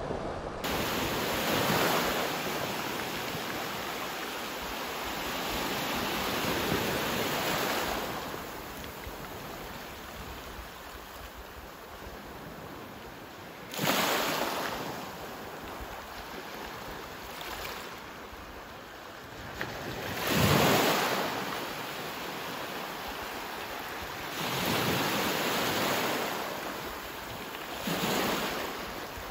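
Small sea waves washing on a pebble shore, the wash swelling and falling away every few seconds, with wind buffeting the microphone.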